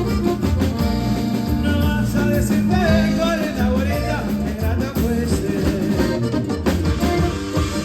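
Live norteño band playing: accordion melody over bass and drums, with a steady beat.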